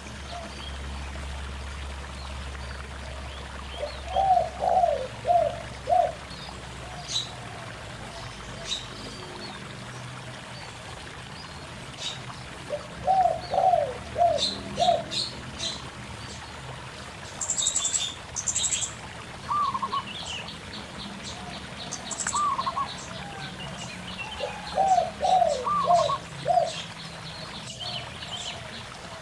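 Zebra doves cooing in quick phrases of four or five soft notes, three times, over a steady trickling stream, with small birds chirping high in the background.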